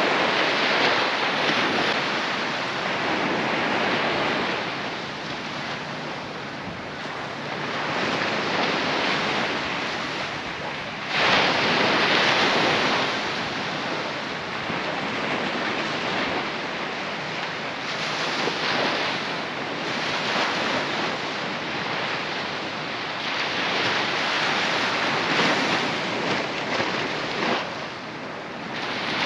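Surf washing onto a sandy beach, a steady rush that swells and falls every few seconds, with a sudden louder surge about eleven seconds in. Wind buffets the microphone.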